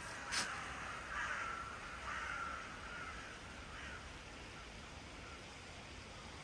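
Crows cawing, a few separate calls over the first four seconds, over a steady background hiss. A sharp click comes just after the start.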